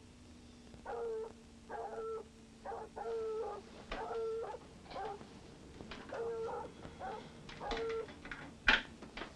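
A dog whimpering and howling at night: about ten short, wavering cries, each under a second, repeating in a loose rhythm. A sharp click comes near the end.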